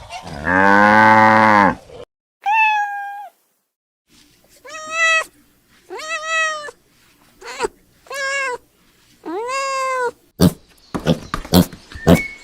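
A cow moos once, loud and low, for over a second. Then a domestic cat meows about six times, each meow a short rise-and-fall with short pauses between. Near the end a hen starts clucking in quick, sharp calls.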